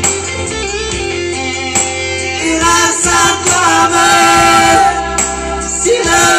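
Music: a voice singing over an instrumental accompaniment that includes guitar.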